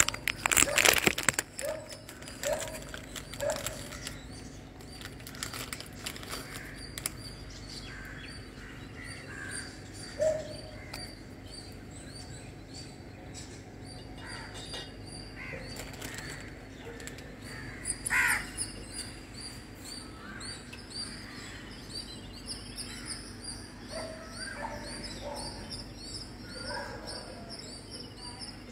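A house crow calling a few times, the loudest calls about ten and eighteen seconds in, over small birds chirping in the background and a low steady hum. It opens with a burst of knocks and clatter.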